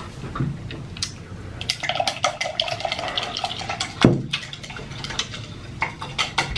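Slurping and drinking leftover broth from a ramen bowl, with scattered clinks of the bowl and utensils. A sharp knock comes about four seconds in.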